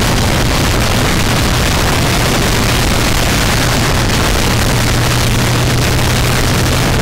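Harley-Davidson V-twin motorcycle engine running steadily at cruising speed, heard from the moving bike under a heavy rush of wind on the microphone. A steady low engine hum sits beneath the noise and grows a little stronger about five seconds in.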